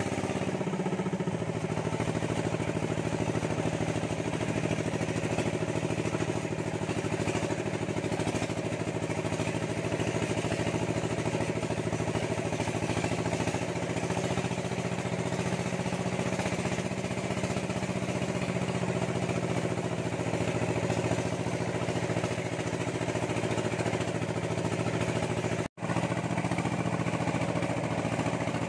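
A vehicle engine running at a steady, even drone, with a hum that holds one pitch throughout. It breaks off for an instant near the end and carries straight on.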